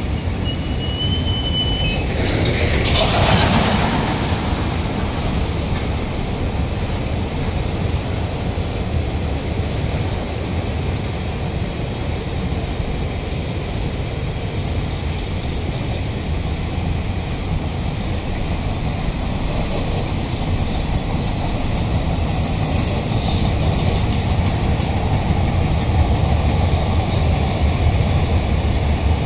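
A train rolling past on the rails with a steady low rumble of wheels and track, and faint high wheel squeals now and then. There is a louder swell a few seconds in.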